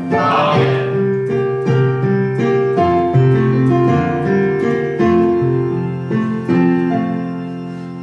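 Piano playing a slow series of sustained chords, dying away near the end.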